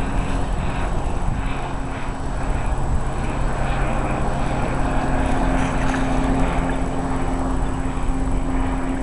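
A steady engine drone holding one pitch, over a low rumble.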